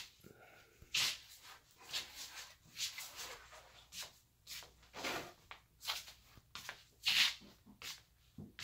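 Soft, irregular rustles and scuffs, about two a second, from someone walking about on a hard floor while carrying and handling the recording phone.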